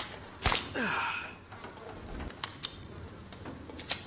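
Sniper rifle sound effect: one sharp crack about half a second in, followed by a short falling tone and a brief hiss, then a few lighter clicks later on.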